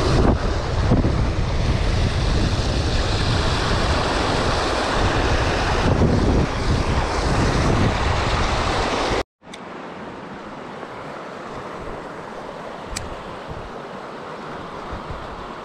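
River rapids rushing over rocks close by, loud, with wind noise on the microphone. About nine seconds in it cuts off sharply to a much quieter, steady flow of water.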